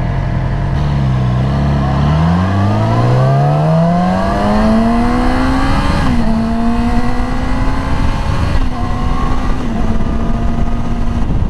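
Yamaha R6 sport bike's 599 cc inline-four engine pulling away and accelerating, rising in pitch for several seconds. The pitch dips slightly about halfway and again near nine seconds as it shifts up early at modest revs.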